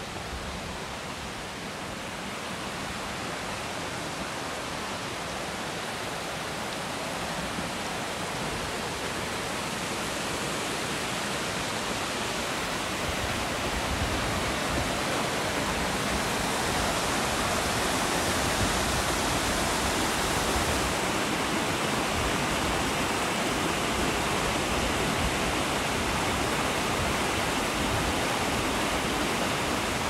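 Rushing water of a waterfall and rocky stream, a steady hiss that grows gradually louder.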